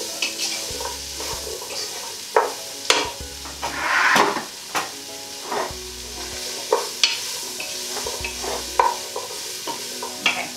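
Chopped vegetables sizzling in oil in a stock pot while a wooden spoon stirs them, with repeated scrapes and knocks of the spoon against the pot. There is a longer, louder scrape about four seconds in.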